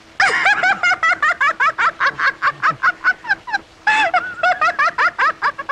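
A woman laughing loudly and shrilly: a long run of quick, high-pitched 'ha' pulses, about seven a second, with a brief break about two-thirds of the way through.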